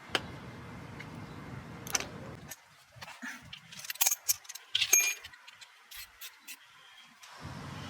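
Metal hand tools and small parts clinking and rattling: scattered sharp clicks, then a quick cluster of metallic clinks with brief ringing about four to five seconds in.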